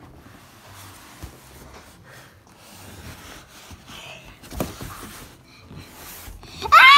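Faint scuffing and a couple of soft knocks from a cardboard box as a child shifts around inside it. Near the end the child lets out a loud, high squeal that rises and then falls.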